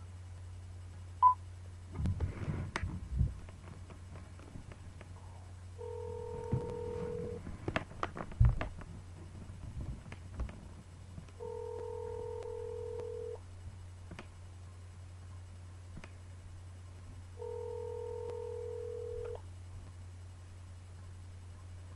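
Outgoing-call ringback tone heard through a phone's speaker, the line ringing three times, about two seconds each and six seconds apart, while the call waits to be answered. A short beep comes about a second in, there are a few handling knocks, and a steady low hum runs underneath.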